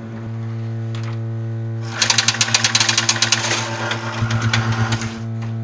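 Jukebox mechanism running: a steady electric hum, with a rapid run of mechanical clicking and rattling about two seconds in, lasting around two seconds, and more clicking just after four seconds.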